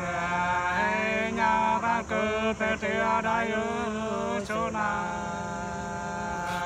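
Two men singing sli (hát sli), the Nùng people's unaccompanied folk love-song, in long drawn-out notes with a wavering pitch. The singing breaks off briefly about four and a half seconds in, then a long note is held again.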